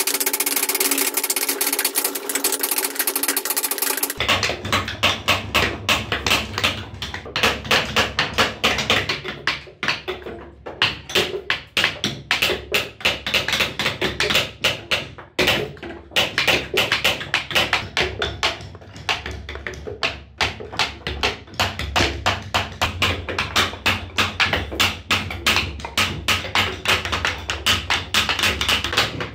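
Wooden mallet striking a steel carving chisel into hardwood: a long run of sharp taps, a few a second, with brief pauses as the chisel is repositioned. The sound changes character abruptly about four seconds in.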